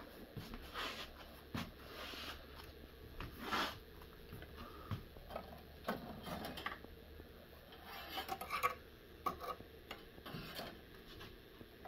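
Faint, irregular rubbing and rustling with light clicks: hands handling the cables and board of an opened computer chassis.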